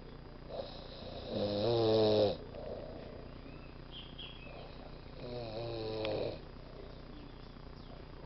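A person snoring: two snores about four seconds apart, each lasting about a second.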